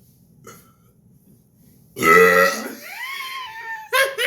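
A single loud, deliberate human burp starting suddenly about two seconds in, then drawn out into a higher tone that rises and holds for about a second.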